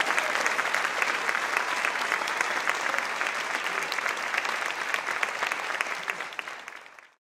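Concert audience applauding, a dense steady clapping that fades out near the end.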